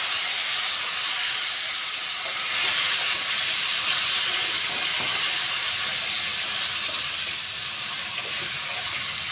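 Marinated chicken pieces sizzling steadily in hot oil in a kadhai while being stirred and turned with a metal spatula, with a few light taps of the spatula on the pan.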